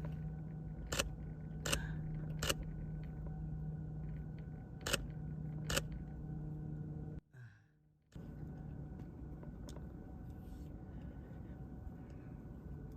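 Five sharp clicks over a steady background hum during the first six seconds. The sound drops out briefly about seven seconds in, then the hum and noise carry on without clicks.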